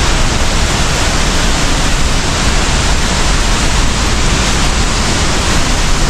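Salto de Candelas waterfall heard close to its base: a loud, steady rush of falling water.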